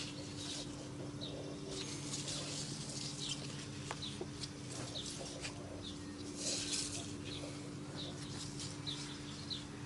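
Small birds chirping repeatedly, with two stretches of rustling as parts and packaging are handled, over a steady low hum.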